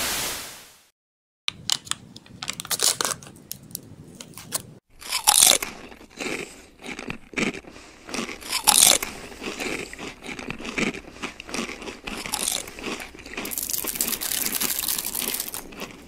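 Crinkling, crackling and tearing of packaging as the foil seal is peeled off a Kinder Joy cup and the plastic cup and spoon are handled: a run of irregular crackles and clicks, denser near the end. A brief hiss comes before it at the very start.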